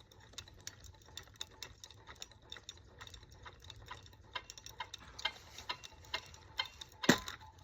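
Ceiling fan running on high with a blade broken off, clicking and rattling about three times a second as the unbalanced fan turns. One much louder knock comes near the end.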